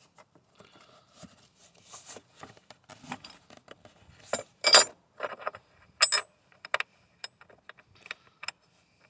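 Battery hold-down clamp being worked back into place at the base of a car battery: an irregular run of clicks, knocks and light scrapes, loudest a little after halfway through.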